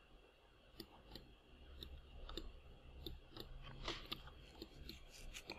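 Faint, irregular computer mouse clicks, about one or two a second, over a low steady hum.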